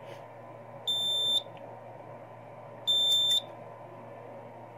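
Edwards EST3x fire alarm control panel's built-in sounder beeping a trouble signal: two high-pitched beeps of about half a second each, two seconds apart, with a third starting at the very end. The beeping signals a battery trouble, a disconnected backup battery.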